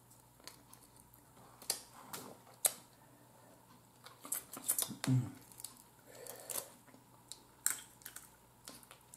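Sparse clicks and crackles of boiled blue crab shell being picked apart by hand, with wet mouth sounds of eating.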